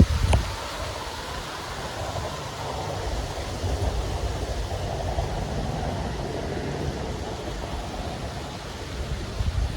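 Steady rain hiss with wind gusting, the low rumble of the gusts loudest in the first half second.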